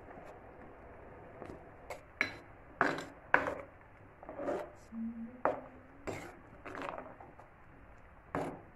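A ladle stirring curry in an earthen clay pot, scraping and knocking against the pot in about ten sharp, irregular strokes from about two seconds in.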